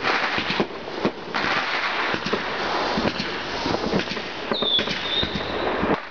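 Fireworks going off in a dense run of crackling pops and bangs. A brief high whistle comes in about four and a half seconds in.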